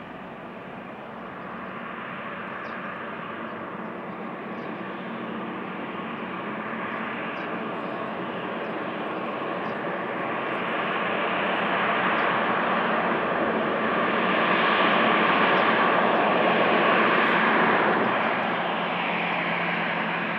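Airbus A319 airliner's jet engines on the landing roll: a steady rushing noise that grows louder over the first fifteen seconds or so, then drops back about eighteen seconds in.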